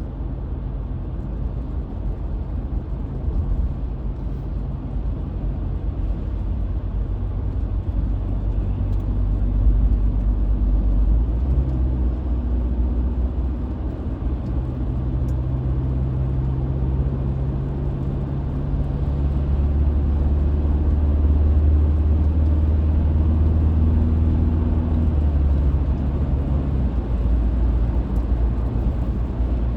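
Steady road and engine rumble of a 2020 Ford Ranger pickup cruising at highway speed, heard from inside the cab. A low hum swells in the middle and fades again.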